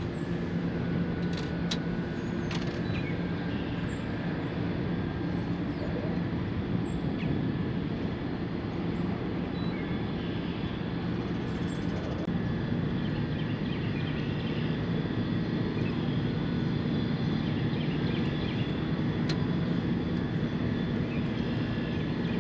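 Boat motor running steadily, an even engine drone that holds the same pitch throughout, with a few faint clicks.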